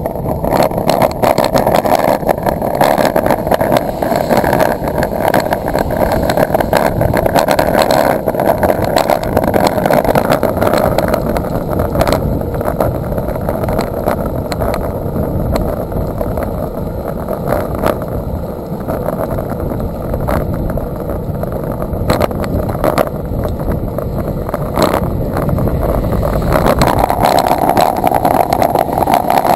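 Steady rushing road and wind noise from riding a bicycle on a wet road in the rain, with scattered small knocks and bumps.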